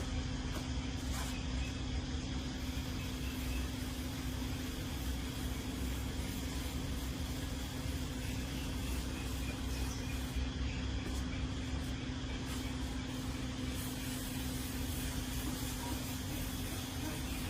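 A machine running steadily with a constant hum and an even hiss, unchanged throughout.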